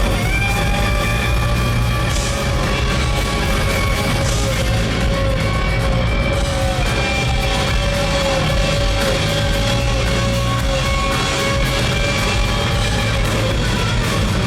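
Rock band playing live at full volume: an instrumental passage with electric guitar over bass and drums, without vocals.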